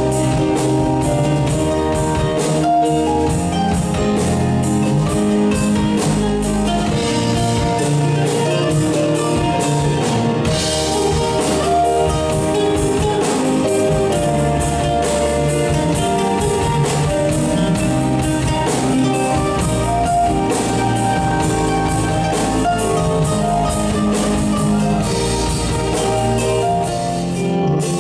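Live band music: a nylon-string classical guitar played fast with many quick notes, over keyboard, sustained bass notes and drums.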